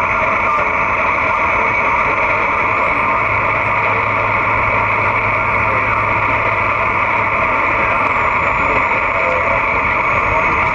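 Steady static hiss from a Cobra 148 GTL CB radio's speaker on lower sideband. This is open-channel receiver noise on the 11-meter band, with no station transmitting.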